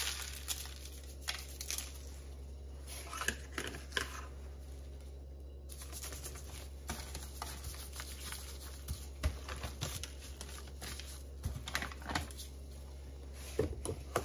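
Butcher paper crinkling and rustling under a gloved hand as raw chicken thighs are rubbed with salt and pepper and turned over, with scattered light taps and rustles over a steady low hum.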